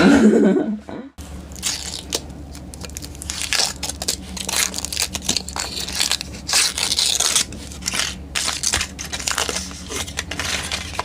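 Foil wrapper crinkling and tearing as a chocolate surprise egg is unwrapped, and the chocolate shell being cracked apart by hand, in many irregular crackles and crunches.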